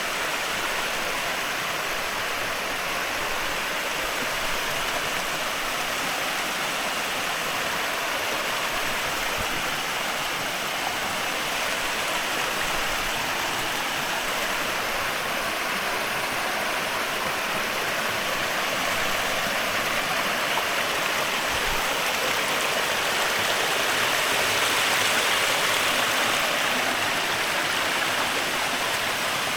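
Rushing water of a mountain stream, a steady hiss that swells slightly about three-quarters of the way through.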